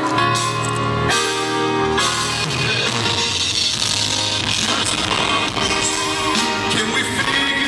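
Live band playing pop-rock at a concert, recorded from the audience with distorted, breaking-up sound. Held chords for about two seconds, then the full band comes in with drums and guitar.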